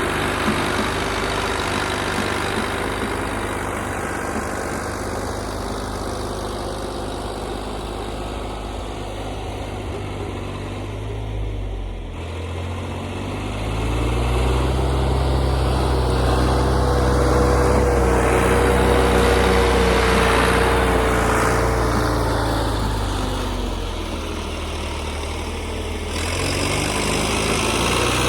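Old John Deere backhoe's diesel engine running and working as it pushes snow, dropping briefly in speed and then revving up louder under load. A steady whine sounds over the engine for several seconds in the middle, and the engine eases off again before picking back up near the end.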